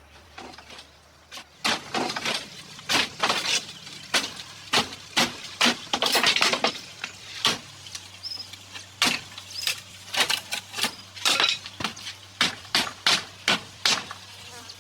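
A fast, irregular series of sharp knocks or clacks, about two to three a second, beginning about two seconds in, over a faint steady low hum.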